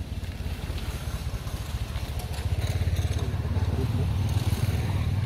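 A small engine running with a low, fast pulse, getting louder about two seconds in.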